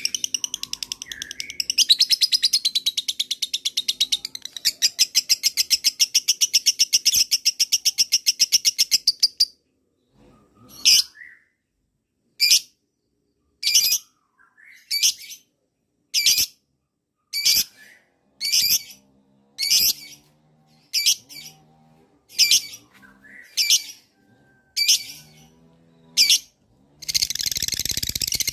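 Lovebird singing a long, very rapid chattering trill, the 'ngekek panjang' prized by lovebird keepers. About nine seconds in it breaks into short separate calls, about one a second, and near the end it starts another long rapid trill.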